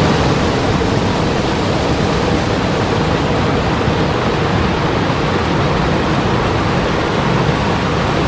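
Steady rush of water pouring over rocks in a small waterfall, cutting off suddenly at the end.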